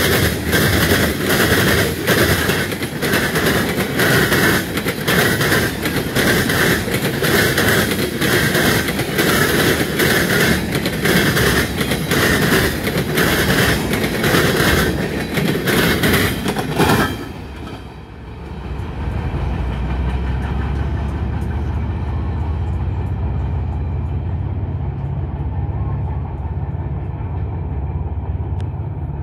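Freight cars passing close at speed, steel wheels clacking rhythmically over rail joints with a steady high-pitched ring over the rumble. About two thirds of the way through, the last car clears and the noise drops off sharply, leaving a steady low rumble.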